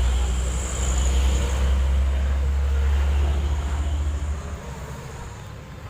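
A vehicle's engine and road noise make a steady low rumble, which falls away about four and a half seconds in.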